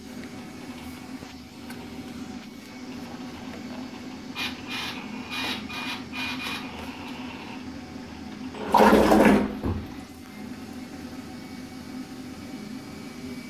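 Electric motor and propeller of a homemade RC boat run from the transmitter in a bathtub: a few short whirs, then a burst of about a second, some nine seconds in, as the propeller churns the water.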